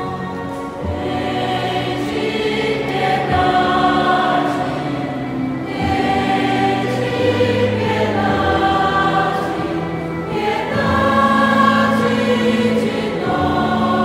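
Mixed-voice choir singing a sacred hymn in held chords that change every second or two.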